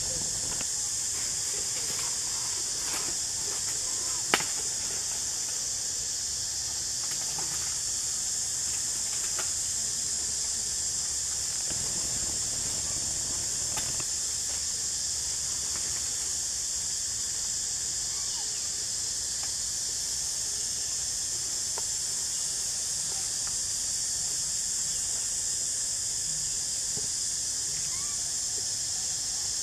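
A steady high-pitched hiss, with scattered faint clicks and rustles as macaques handle rubbish and food, and one sharp click about four seconds in.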